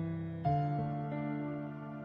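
Soft instrumental background music: sustained keyboard chords, with a new chord struck about half a second in.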